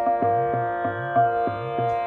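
Instrumental Indian classical accompaniment in raag Bihag: a plucked string instrument sounding notes about three times a second over a steady drone, with a repeating low pitched beat underneath.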